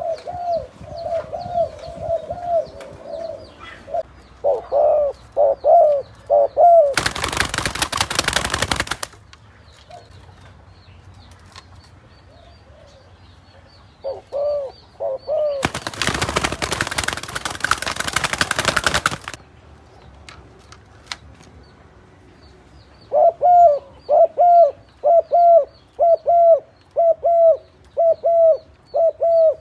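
Spotted doves cooing: a run of coos at the start, a short phrase in the middle, and near the end a steady series of repeated coos, a little under two a second. Two loud bursts of even rushing noise, each two to three seconds long, break in about seven seconds in and again about sixteen seconds in.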